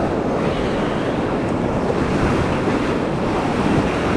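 Whitewater rapids rushing steadily around a paddle raft, with wind noise on the microphone.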